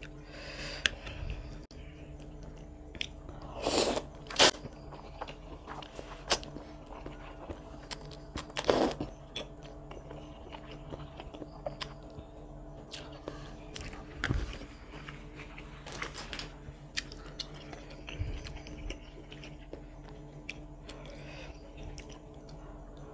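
Close-miked mouth sounds of eating chicken noodles with meatballs: wet chewing and slurping of noodles, with small clicks and a few louder slurps. A faint steady hum runs underneath.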